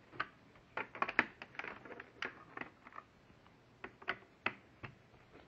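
Irregular light clicks and taps of hands handling a plastic laptop case, bunched together about a second in and scattered after that.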